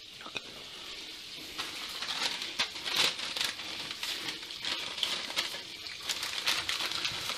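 Sheet of baking paper rustling and crinkling as it is unrolled, laid out and folded by hand, in irregular crackles.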